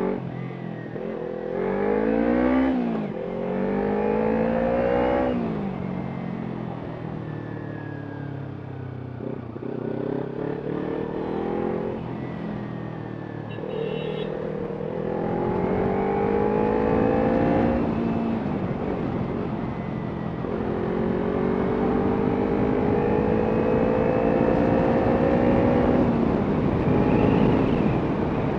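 Kawasaki Ninja 300's parallel-twin engine through an aftermarket Arrow exhaust, pulling up through the revs and dropping back at each gear change, again and again as the bike accelerates.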